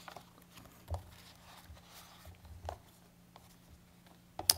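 A few faint knocks and rustles of a book and papers being handled on a wooden lectern, close to its microphone, with a sharper click near the end.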